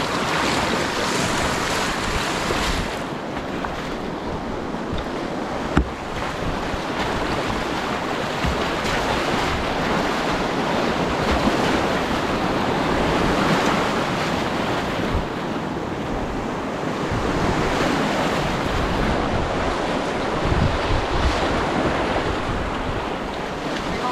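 Rushing whitewater of a steep, fast-moving mountain creek heard up close from a kayak running the rapids, with water buffeting the microphone. One sharp knock about six seconds in.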